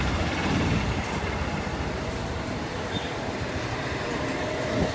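Steady rolling noise of a small vehicle travelling over a street of interlocking paving stones: tyres and running gear rattling over the pavers.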